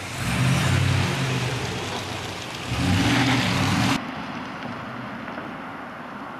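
Ford F-250 pickup's engine accelerating as it pulls away towing an empty flatbed trailer, in two louder surges with the engine pitch climbing in the second. About four seconds in the sound drops suddenly to a fainter, steady noise of the truck moving off down the road.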